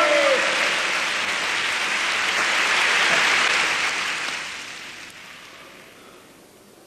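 A crowd applauding, which dies away over the last few seconds.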